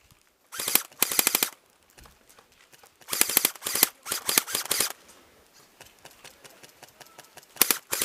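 Airsoft rifle firing short full-auto bursts, a rapid even rattle of shots: two bursts in the first second and a half, four more between about 3 and 5 s, then scattered faint pops, and two more bursts near the end.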